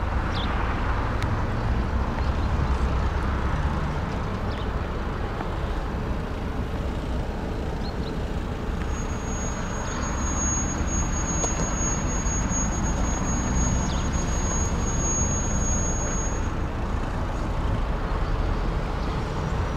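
Steady low rumble of motor vehicle noise, with a thin high-pitched whine for about seven seconds in the middle.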